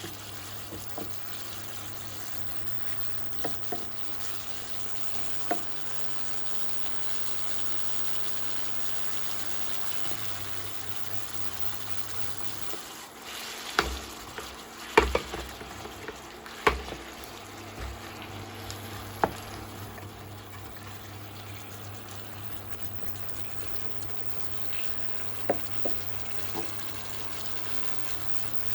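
Mixed seafood cooking in olive oil and its own juices in a frying pan, bubbling and sizzling steadily. A few sharp knocks of a utensil against the pan come around the middle and again near the end, over a low steady hum.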